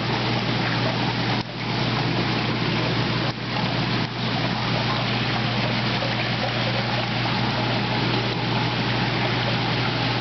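Steady rush of running water in a koi pond, with a low steady hum underneath. The sound dips briefly three times in the first four seconds.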